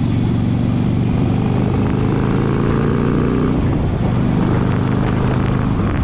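Harley-Davidson Road King Classic's fuel-injected Twin Cam 88 V-twin running at a steady cruising speed while being ridden, its pitch holding nearly constant with only slight changes in throttle.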